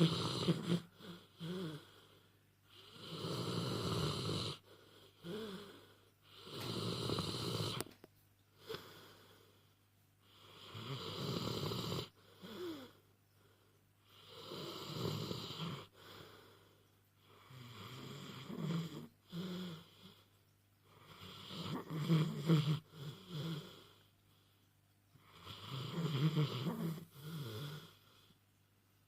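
A dog snoring in its sleep, one rasping snore every three to four seconds, about eight in all.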